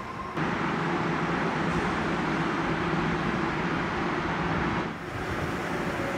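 An Osaka Monorail train standing at a station platform: a steady mechanical hum with a low drone. The sound level jumps up just after the start and drops back about five seconds in, where the shots change.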